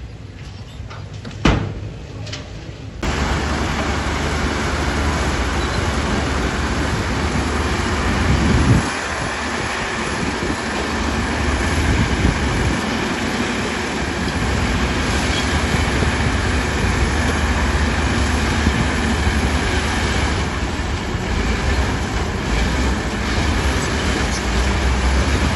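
Heavy diesel earthmoving machinery running under load with a steady low rumble and clatter, starting abruptly about three seconds in after a quieter stretch with a single sharp knock.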